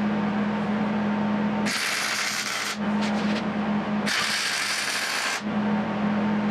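Arc welder laying a weld bead: two bursts of loud crackling arc, each about a second long, the first beginning about two seconds in, with a steady electrical hum from the welder in between that drops away while the arc runs.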